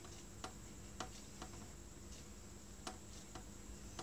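Light, sharp clicks at an irregular pace, often in pairs, from a fingertip flicking and tapping the glass of a smartphone touchscreen to scroll, over a faint steady hum.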